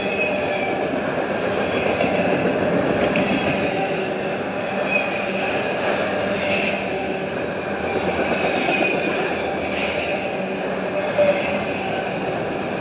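Freight train of autorack cars rolling past: a steady loud rumble of steel wheels on rail, with high wheel squeals coming and going several times.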